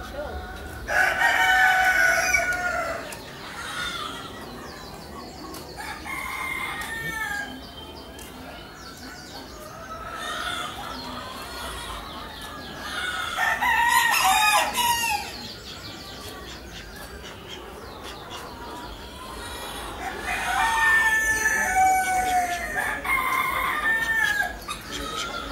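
Roosters crowing several times, with long loud crows about a second in, around the middle and near the end, and softer fowl calls in between.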